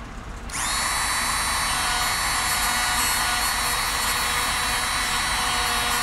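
Dremel rotary tool switching on about half a second in and spinning up to a steady high whine, its wire-brush bit scrubbing a film off a small brass carburetor part.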